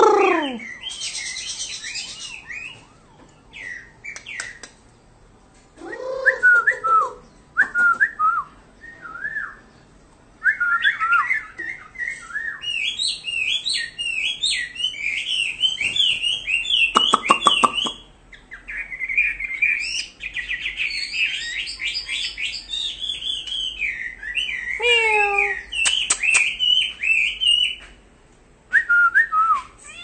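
Chinese hwamei singing: loud, varied whistled phrases and quick trills, broken by short pauses.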